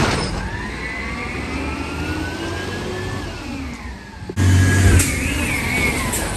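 Compressed-natural-gas automated side-loader garbage truck pulling away and accelerating, its engine and driveline whine rising in pitch for about three seconds, then easing off. A little over four seconds in, the sound cuts abruptly to a louder, closer truck engine with a low hum.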